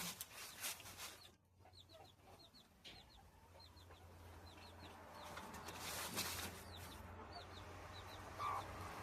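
Chickens clucking, with many short, high, falling chirps repeated through it, over a low steady hum and background noise that grows louder in the second half.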